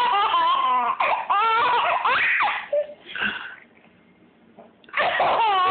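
A small child laughing hard in high, squealing peals, falling quiet for about a second and a half after the middle, then laughing again near the end.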